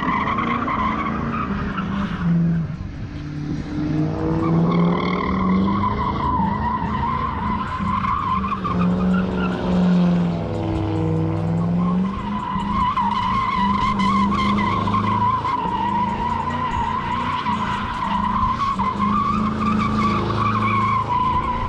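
Sedan doing donuts: tires squealing in a continuous screech over the engine held at high revs, its pitch wavering as the throttle is worked. The squeal eases a couple of seconds in and again around the middle, then comes back strongly.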